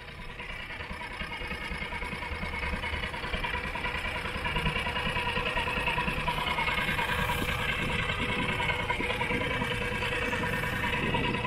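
Small outboard motor on an inflatable dinghy running steadily at low speed, its hum growing a little louder over the first few seconds.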